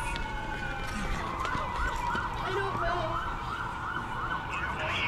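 Emergency vehicle siren sounding: a slow falling wail that switches, about a second and a half in, to a fast yelp of about four sweeps a second.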